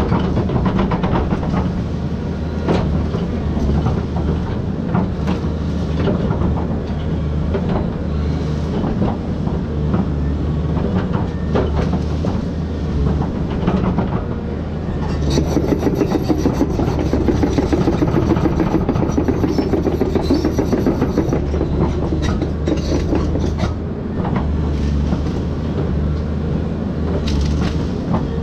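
Volvo excavator's diesel engine running steadily under hydraulic load, with frequent knocks and clanks as the machine works. Midway through it grows a little louder for several seconds and a faint high whine joins in.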